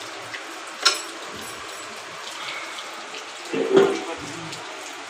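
Steady hiss of water, with a sharp click about a second in and a louder knock just before four seconds.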